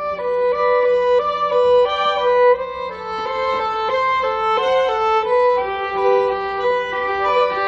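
Background music: a violin playing a melody, its notes changing several times a second.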